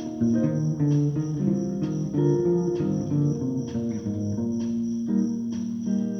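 Bass guitar played melodically, plucked notes and double-stops moving from one to the next, with a steady beat of light clicks a little under one a second behind it.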